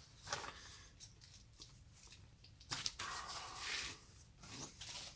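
Rustling and scraping of a nylon safety flag being worked off the top of an LED whip by hand, loudest for about a second around three seconds in.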